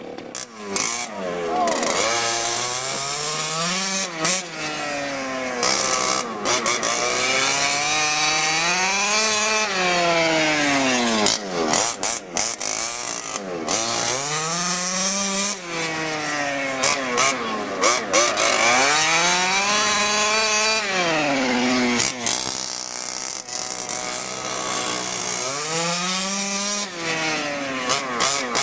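1/5-scale HPI Baja's two-stroke petrol engine running hard around a dirt oval. Its pitch climbs and falls about every five to six seconds as the throttle is opened and eased, with brief throttle lifts in between.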